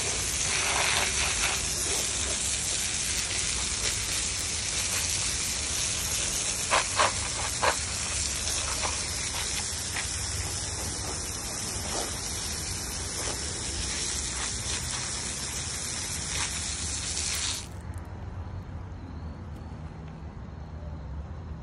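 Steady hiss of a water jet spraying over cut wood slabs on gravel, with three short sharp hits about seven seconds in. The spray cuts off suddenly a few seconds before the end, leaving a low rumble.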